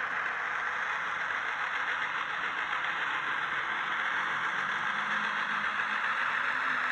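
Sound decoder in an N gauge Class 17 diesel locomotive model playing a diesel engine running, through a tiny speaker: a steady, thin engine rattle with little bass, growing a little louder near the end.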